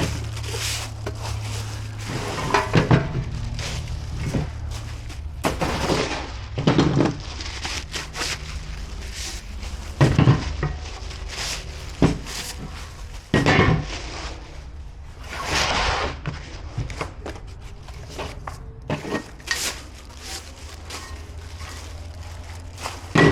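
Stainless-steel and sheet-metal gas grill parts being handled and set down: irregular clanks and knocks with scraping and rustling in between, over a low steady hum.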